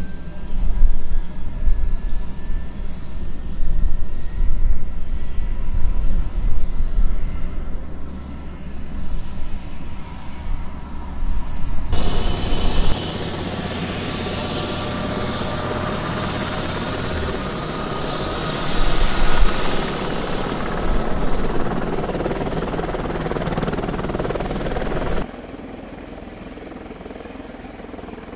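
Eurocopter EC120B Colibri's turboshaft engine and rotor running up during startup: a turbine whine climbs steadily in pitch over an uneven low rumble. The sound then changes abruptly twice, first to louder, fuller rotor and turbine noise, then to quieter, steady running with a high constant whine.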